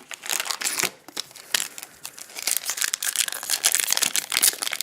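A trading card pack's plastic wrapper being torn open and crinkled by hand: a dense run of crackling that gets busier after about two seconds.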